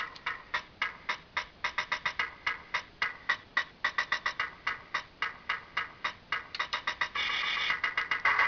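Electronic drum-machine beat from a battery-powered toy robot craft's small built-in speaker: thin, tinny percussion patterns with no bass, played in a quick steady rhythm. About seven seconds in, the pattern changes to a denser, louder electronic sound.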